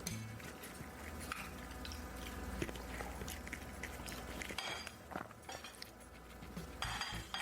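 A person chewing and biting food close to the microphone, with many small irregular clicks and two louder, noisier moments, about four and a half and seven seconds in.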